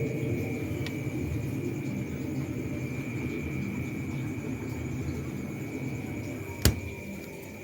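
Two-door refrigerator running: a steady low hum with a thin high whine over it. There is one sharp click near the end.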